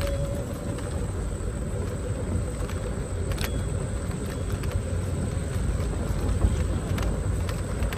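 Xiaomi Mi 1S electric scooter rolling over brick paving: a steady low rumble from the tyres running on the pavers, with a few sharp clicks and rattles from the scooter.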